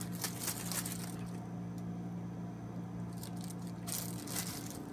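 Hands handling slime: short soft squishing and rustling noises in a few clusters, over a steady low hum.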